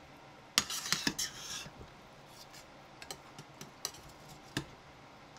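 Metal slotted spoon and ladle clinking and scraping against a stainless steel pot while the braised chicken and vegetables are turned over. A quick run of clinks comes about half a second in, followed by a few single taps.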